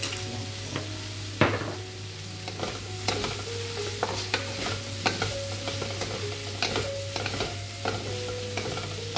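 Sliced vegetables (carrots, cabbage and bell pepper) stir-frying in a hot pan: a steady sizzle with a utensil scraping and tapping against the pan, and one sharper knock about one and a half seconds in.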